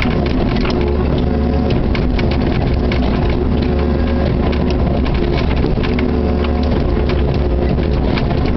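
Kubota KX61-3 mini excavator's three-cylinder diesel engine running steadily, heard from inside the cab. A hydraulic whine rises and falls as the boom and bucket are worked. Frequent short knocks and clatters run through it.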